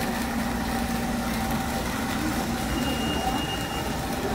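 Market street background noise: a steady low hum and rumble with a faint constant drone, like a motor running, and faint distant voices.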